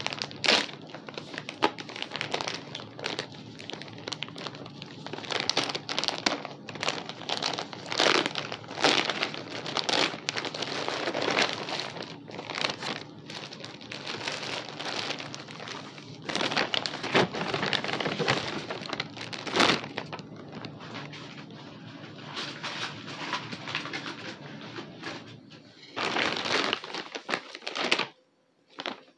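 Packaging being handled and opened by hand: irregular crinkling and rustling with many scattered clicks and knocks.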